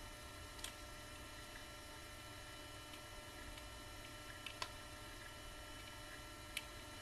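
Steady electrical mains hum, with three small sharp clicks of hard plastic action-figure parts being handled and fitted together.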